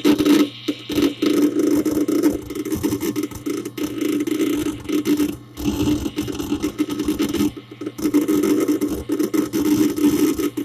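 Hard disk drive inside a Dell Dimension 4700 desktop, busy with disk activity: a dense, rapid chatter of seek clicks, heard from inside the case close to the drive, pausing briefly about two and a half and seven and a half seconds in. A steady low hum runs beneath.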